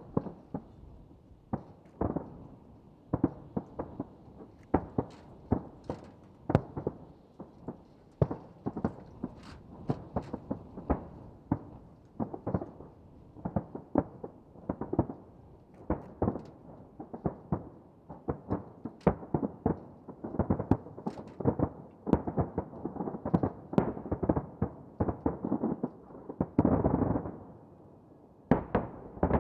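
Aerial firework shells bursting in a rapid barrage: sharp bangs several a second, growing denser in the last third, then a short lull and a final pair of bangs near the end.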